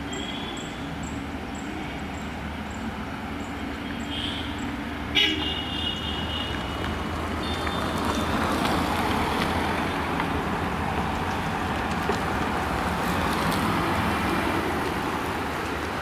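Traffic on a hill hairpin road: cars, motorbikes and a concrete mixer truck running past, with short vehicle horn toots, the clearest starting sharply about five seconds in. The engine and tyre noise grows louder from about eight seconds in as vehicles pass close.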